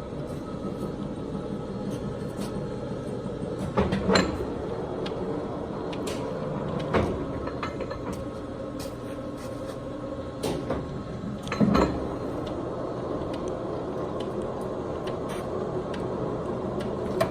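A 1984 Poreba TPK90 engine lathe running steadily under power, its motor and geared headstock giving a continuous drone with a faint steady whine. Several sharp clunks come at intervals on top of it.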